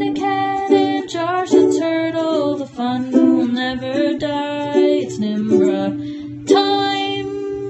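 Outro song: a voice singing a light, upbeat tune over plucked-string accompaniment, ending on a held chord that fades near the end.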